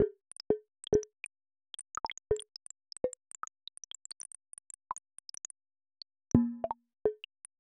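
Earthquake-catalogue sonification: a rapid, irregular scatter of short synthetic plinks and plops, one per earthquake, with the pitch set by the quake's magnitude. Many faint high blips mix with about ten louder, lower plops, and a deeper, longer tone comes a little past six seconds in.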